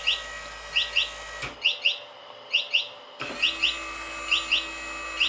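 Electronic warning buzzer on an Arduino pool reel controller chirping in quick rising double chirps about once a second, the sign that the system is powered on. Under it the reel's electric motor hums, stops with a click about one and a half seconds in, and starts again a couple of seconds later as the momentary push buttons drive it back and forth.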